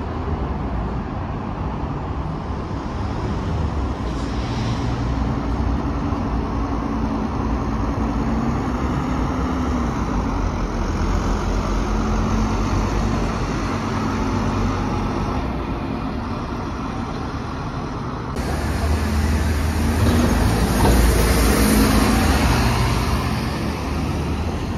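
Diesel double-decker buses moving off and driving past, their engine note rising and falling. About eighteen seconds in the sound changes abruptly and a bus engine pulls away louder.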